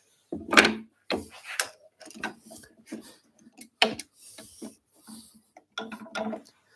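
Irregular wooden knocks, clicks and scrapes as a length of pine is shifted and set down on a wooden bench top, with a brief scraping stretch a little past the middle.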